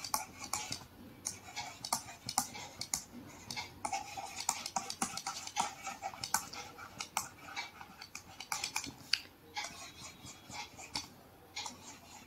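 Faint taps and short scratching strokes of a stylus on a tablet screen during handwriting, several irregular ticks a second, with a short lull near the end.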